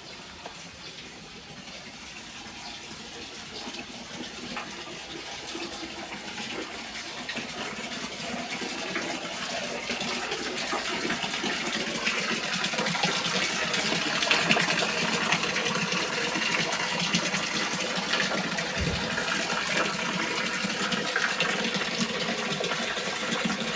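Waterfall splashing in a steady rush of falling water, growing steadily louder over the first half and then holding level.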